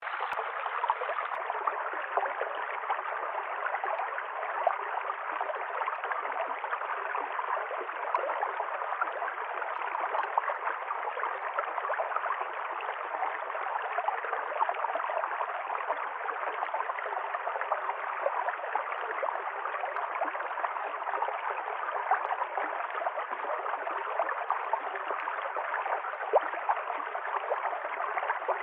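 A river stream flowing and gurgling over stones, a steady rushing of water.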